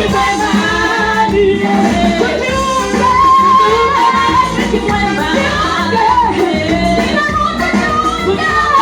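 A choir singing a gospel song with keyboard accompaniment.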